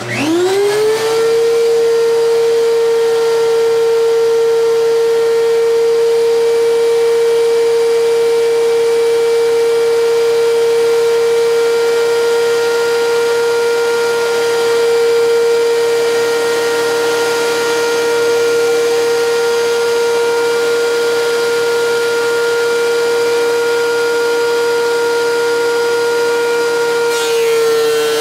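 A 13-inch thickness planer's motor and chip-ejection fan starting up, spinning up within a second to a loud, steady high whine that runs on. The tone shifts slightly near the end.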